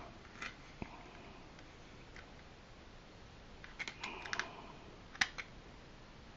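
Small plastic toy TIE Fighter being handled, with scattered faint clicks and taps of hard plastic. There is a cluster of clicks about four seconds in and a sharper single click just after five seconds.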